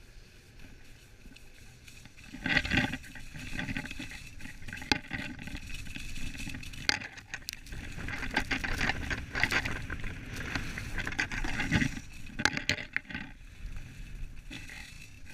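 Skis scraping and carving over packed snow during a downhill run: quieter for about the first two seconds, then louder, uneven scraping with sharp rasps as the edges bite on turns.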